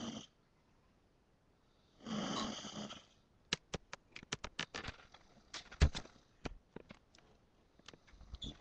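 A woman snoring: one long snore about two seconds in and another beginning near the end, with the tail of one at the very start. Between them comes a run of sharp, irregular clicks and taps lasting about four seconds, the loudest a thump about six seconds in.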